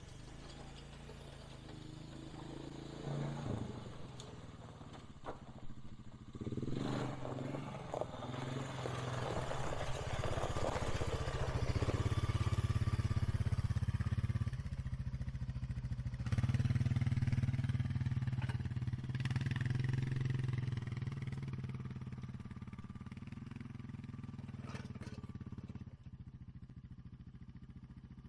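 ATV engine running as it tows a box blade past close by: it grows louder a few seconds in, is loudest midway, and fades as the ATV drives away. There is scraping and clatter from the blade dragging over hard-packed dirt as it passes.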